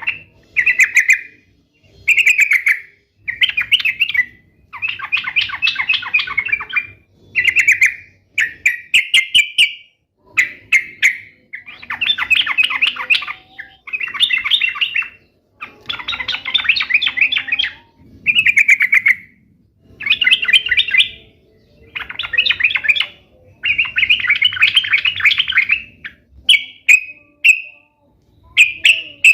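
Yellow-vented bulbul (trucukan) singing: short, chattering song phrases of about one to two seconds each, repeated over and over with brief pauses between them.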